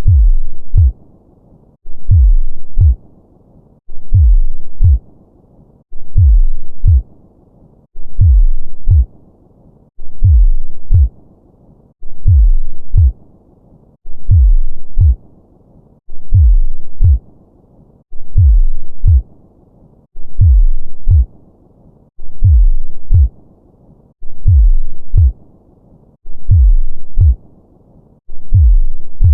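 Heartbeat sound effect: loud, low, slow lub-dub double thumps, one pair about every two seconds, repeating evenly.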